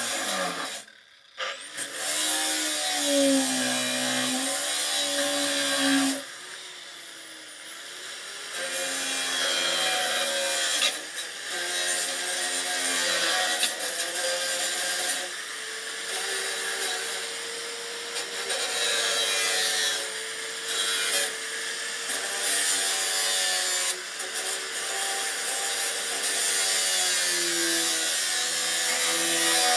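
Angle grinder with a cut-off disc cutting through a metal bar. The motor's pitch wavers and dips as the disc bites, with a brief stop about a second in and a quieter stretch around six to eight seconds.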